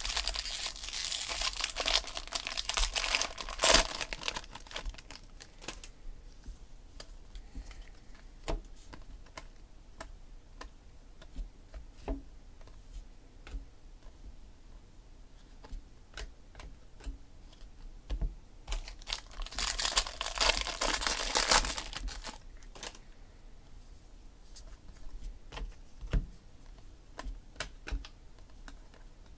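Foil wrapper of a baseball card pack being torn open and crinkled for the first few seconds, then cards being slid through by hand with scattered light ticks. A second stretch of crinkling comes about twenty seconds in.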